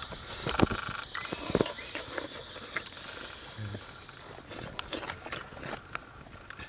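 A person eating fish soup, chewing and smacking his lips, with short mouth clicks scattered through and a brief low hum about three and a half seconds in.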